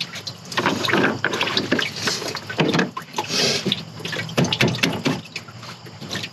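Engine coolant draining out of the disconnected radiator hoses and splashing down in uneven, gurgling spurts.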